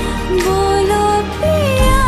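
Hindi film song playing: a sung melody line over instrumental backing.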